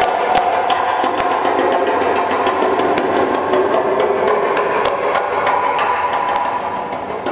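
Background music played over PA loudspeakers in a large hall: steady tones over a quick, even beat of sharp, wood-block-like clicks.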